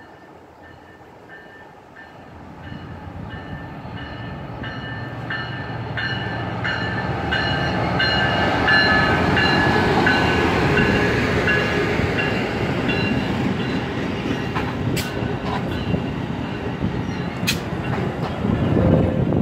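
Amtrak Pacific Surfliner passenger train arriving and rolling past on the near track. Its rumble and wheel clatter grow loud over the first half and stay loud as the bilevel cars go by. A repeating ringing tone sounds through the first half, and a couple of sharp clicks come near the end.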